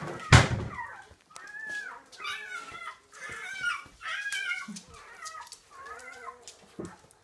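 Five-week-old Labrador Retriever puppies whining and yipping in short, high, arching cries, one after another, as they jostle together. A loud thump comes about half a second in.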